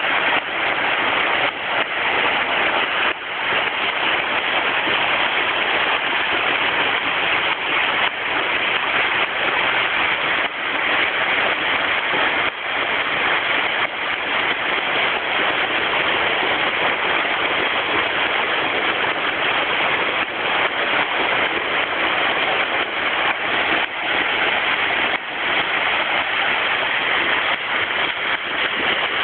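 Kawarage Ōyu-taki hot-spring waterfall pouring steadily: a constant, even rush of falling water.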